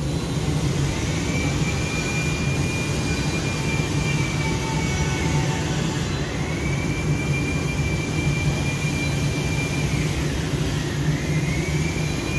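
Paint spray booth's ventilation fans running: a steady rush of air with a high whine that sags in pitch and recovers twice.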